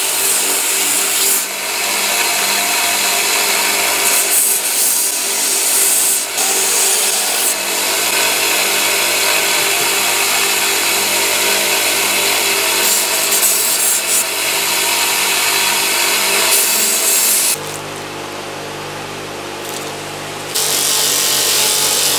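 Steel pliers ground on a small running belt grinder, the abrasive belt rasping against the metal with shifting pressure over a steady motor tone. About 17 seconds in this gives way to a Sealey bench grinder with buffing wheels spinning with a quieter low hum. Loud rubbing starts again a few seconds before the end.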